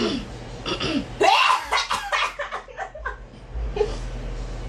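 Girls laughing: a loud burst of quick, rapid laughter starts about a second in and trails off over the next two seconds, with smaller giggles around it.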